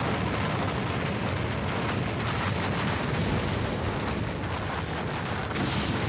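Sound effect of a concrete-framed skyscraper collapsing: a steady, heavy rumble of crumbling concrete and falling debris, thick with small cracks and crashes.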